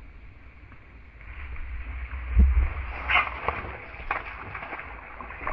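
Fishing gear being handled: a heavy bump on the microphone about two and a half seconds in, then a run of quick clicks and rattles as the rod and baitcasting reel are worked.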